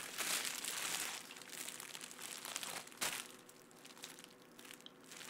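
Plastic bubble wrap crinkling and rustling as it is handled and pulled open from around a packaged box. Louder in the first couple of seconds and again for a moment about three seconds in, quieter near the end.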